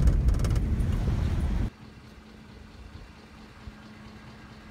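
Car cabin rumble from driving on a dirt road, with some crackles over the low rumble, cut off abruptly after under two seconds. Then a faint steady low hum.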